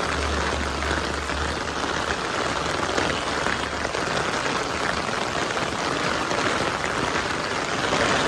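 Steady rain falling and pattering on nearby surfaces, with a low rumble that fades out over the first couple of seconds.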